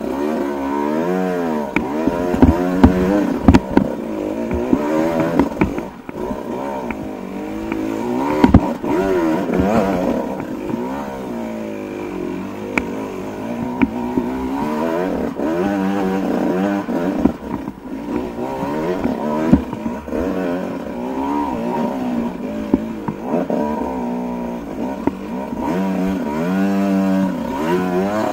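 Dirt bike engine revving up and down over and over under load on a steep rocky climb, with sharp knocks and clatter from the bike hitting rocks.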